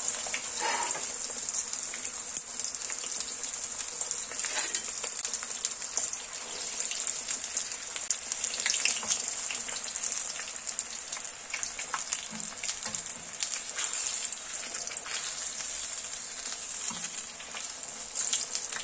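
Two meat-filled çiğ börek turnovers frying in hot oil in a pan: a steady sizzle with many small crackles and pops.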